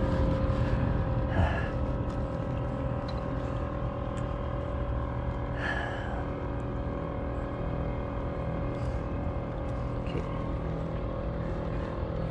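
A steady mechanical drone, like a distant engine, holds the same pitch throughout. About six seconds in there is a short breathy sigh.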